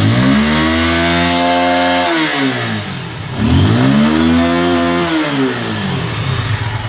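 Italika 170Z motorcycle's single-cylinder four-stroke engine revved twice with the throttle, each rev rising and dropping back, then settling to a steady idle near the end. It runs smoothly, not rough.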